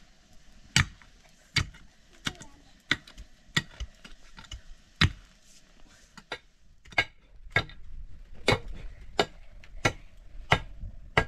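A hand pick striking stony soil over and over while digging, sharp dull impacts coming about every two-thirds of a second.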